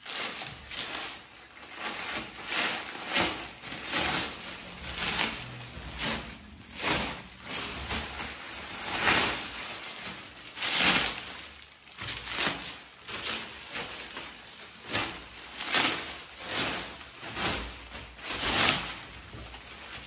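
Plastic packaging film rustling and crinkling as it is pulled off a newly unboxed appliance, in a long series of irregular swishes.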